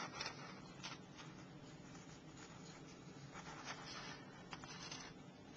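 Faint rustling and sliding of a sheet of printer paper being folded in half and its edges lined up, with a few soft scrapes.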